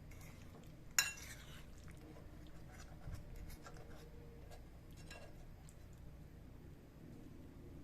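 Tableware clinking: one sharp clink about a second in, then a few soft clicks and taps and a dull knock around three seconds in.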